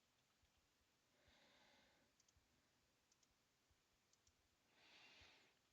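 Near silence, with a few faint computer mouse clicks and two soft breaths.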